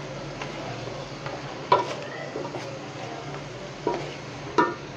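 Chicken and vegetables sizzling as they stir-fry in a large metal pot, turned over with a silicone spatula that scrapes along the pot. Three short, sharper scrapes stand out, about two, four and nearly five seconds in.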